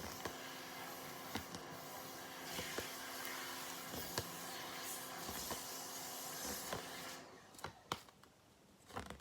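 Faint steady hum and hiss of room background noise with a few light clicks, cutting out to near silence about seven seconds in.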